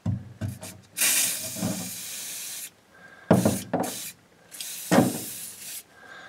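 Aerosol can of WD-40 spraying onto a rubber grommet in three bursts of hiss, the first and longest starting about a second in. A few knocks come between the bursts.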